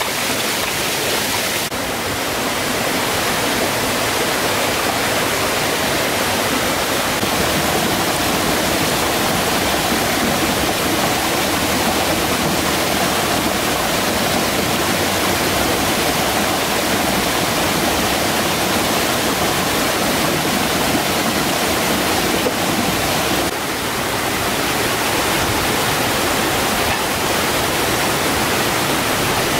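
Shallow rocky stream running over stones: a steady rush of flowing water, changing slightly in tone twice.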